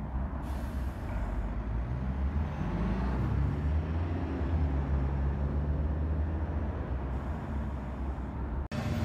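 Siemens-Duewag Sheffield Supertram pulling away from a stop: a low rumble with a motor tone that rises in pitch about two to three seconds in, then holds steady. The sound cuts off abruptly near the end.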